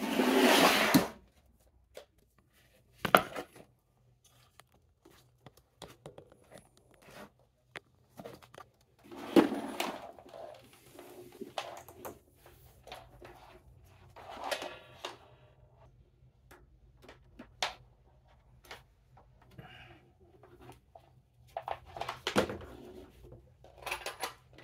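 Hands handling wires and connectors at a battery: irregular rustles, scrapes and sharp clicks, the loudest a rustle of about a second right at the start, over a faint low hum.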